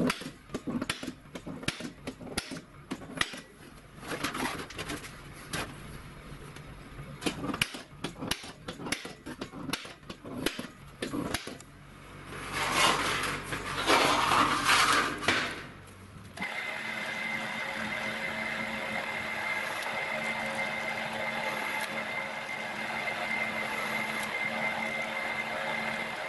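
Sharp, irregular clicks of a spring-loaded automatic centre punch marking sheet metal, then a few seconds of louder scraping as the cut metal sheet is handled. About sixteen seconds in, an electric drill starts and runs steadily with a high whine, boring holes in the sheet.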